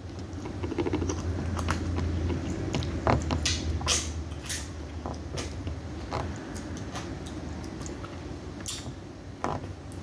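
Mouth sounds of a person picking food from between her teeth: scattered small clicks and smacks. A low rumble runs under them for the first six seconds or so.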